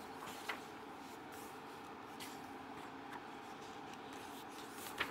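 Magazine pages being handled and turned: a few faint, short paper rustles and taps, the clearest about half a second in and just before the end, over a low steady room hum.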